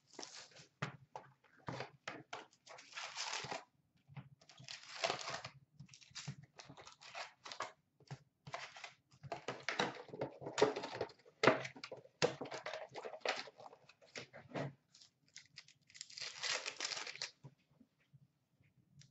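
Hands tearing open a hockey card box and its wrapped packs: cardboard and wrapper rustling and ripping, with several longer tears of about a second each among short crinkles and clicks of the packs and cards being handled.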